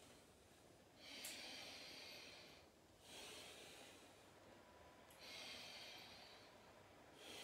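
Faint, slow audible breathing: a person inhaling and exhaling in a steady rhythm, about one breath every two seconds.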